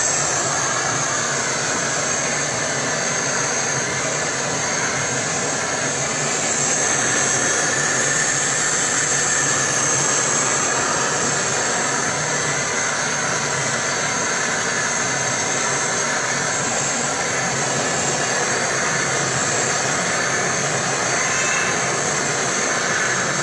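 Hot-air gun blowing with a steady, unbroken rush, used to heat a refrigerator door's rubber gasket so it can be reshaped to seal.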